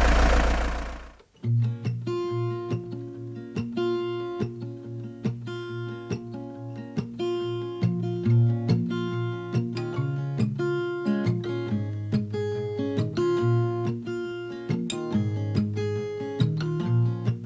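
A loud noise with a deep low rumble fades out about a second in, and acoustic guitar music follows: a steady run of picked and strummed notes.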